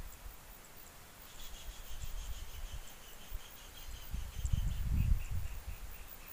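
Outdoor marsh ambience: wind rumbling on the microphone in low gusts. From about a second in, a fast, even series of short high chirps runs on, drifting slightly lower in pitch.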